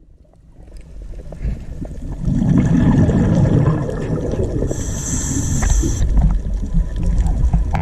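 Deep underwater sea ambience: low rumbling and gurgling water that fades in over the first two seconds, with a brief high steady tone about five seconds in.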